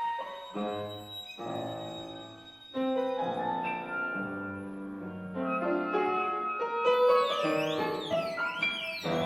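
Contemporary classical chamber quintet of flute, clarinet, piano, violin and cello playing: a few short piano-led chords in the first couple of seconds, then held notes layered over one another, and near the end high tones sliding repeatedly up and down.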